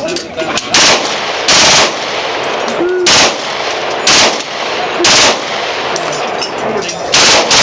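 Machine gun fired in about six short bursts, each a fraction of a second long, with a steady crackle of other gunfire underneath.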